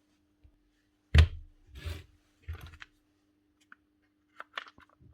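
Grinder parts handled on a workbench: a sharp knock about a second in, two short scrapes, then a few light clicks near the end, over a faint steady hum.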